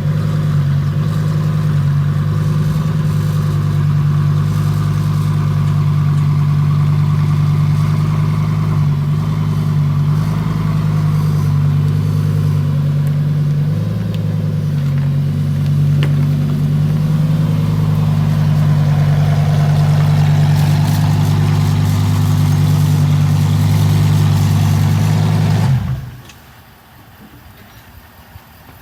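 Lamborghini Huracan Evo's V10 running steadily at low revs, loud, through an aftermarket Ryft titanium exhaust. The sound drops off suddenly about 26 seconds in, leaving a much quieter engine hum.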